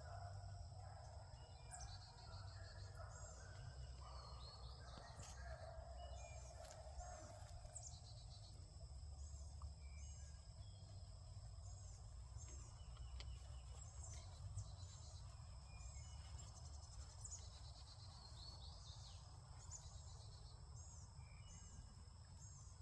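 Faint field ambience: a steady high insect drone with short bird chirps repeating throughout, and faint, distant beagle voices during roughly the first seven seconds.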